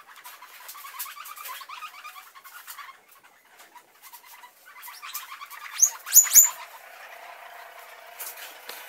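Guinea pigs squealing and chirping as they are caught and moved. Soft chirps come in the first few seconds, and a burst of loud, high, rising squeals comes about six seconds in.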